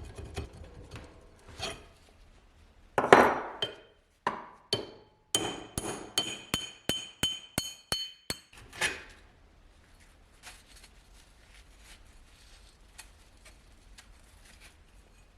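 Hammer striking metal: one heavy knock about three seconds in, then a quick run of about a dozen sharp, ringing metallic blows at roughly four a second, ending with a last blow and faint clinks.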